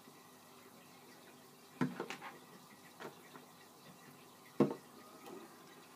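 Small plastic bubble-solution bottles and containers being handled while colours are poured in: a few light clicks and knocks, a short cluster about two seconds in and the sharpest knock about three-quarters of the way through.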